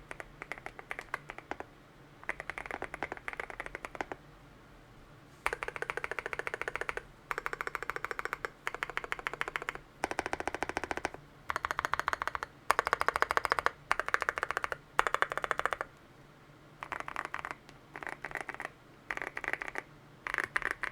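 Custom Akko MOD007 v2 mechanical keyboard with lubed Gazzew Boba U4T tactile switches on a PC plate, typed on in fast bursts of keystrokes a second or so long, separated by brief pauses.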